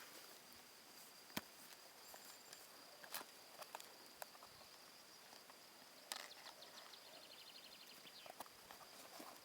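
Near silence: a faint steady high-pitched whine, with a few scattered sharp clicks and light taps.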